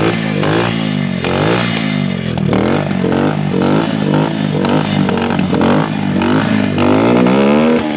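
Bajaj Discover's single-cylinder motorcycle engine running after long storage, its revs rising and falling about twice a second. It is misfiring slightly, which the mechanic expects to clear as the engine warms up.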